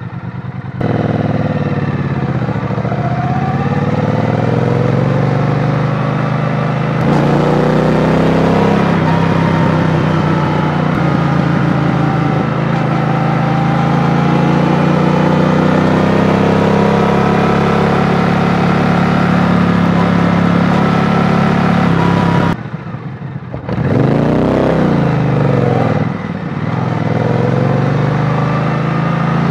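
Triumph Bonneville T120's 1200 cc parallel-twin engine pulling away and accelerating up through the gears, its pitch rising and dropping back at each shift, then running steadily. About three-quarters through the engine sound drops briefly as the throttle closes, then comes a quick rev up and back down.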